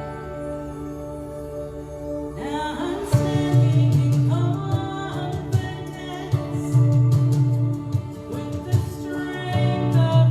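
Contemporary worship song played by a band between sung lines: held keyboard chords, then bass and drums come in with a steady beat about three seconds in.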